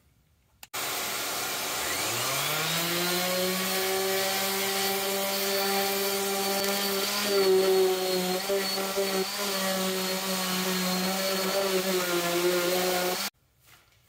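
Random orbital sander starting up about a second in, its motor whine rising to speed, then running steadily while sanding the fiberglassed wooden deck around a hatch opening to taper the edge. It cuts off suddenly near the end.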